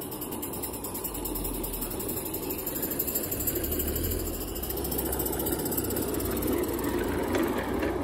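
Live-steam garden-railway locomotive running along its track, a steady mechanical running sound with steam, growing louder over the first few seconds.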